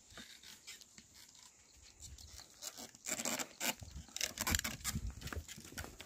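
An ox-drawn wooden plough dragging through dry soil, with the oxen and the ploughwoman stepping on the earth: irregular scraping and soft thuds that start about two seconds in.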